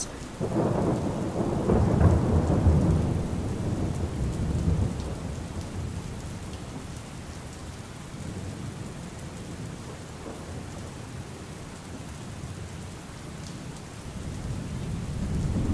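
Steady rain with a long roll of thunder that swells in the first couple of seconds and dies away; a second rumble of thunder starts building near the end.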